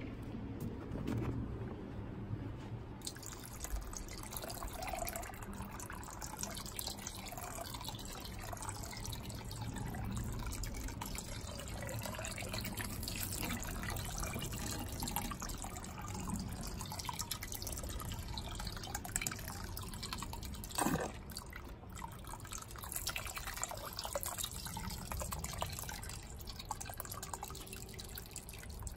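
Soapy water pouring into a wax melter's tank of hot melted wax: steady liquid splashing and dripping with many small ticks, and one sharper tick about 21 seconds in.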